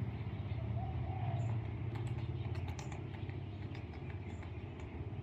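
A steady, low, pulsing engine-like rumble. Over it, a bird gives a short wavering coo about a second in, followed by a few faint high chirps and clicks.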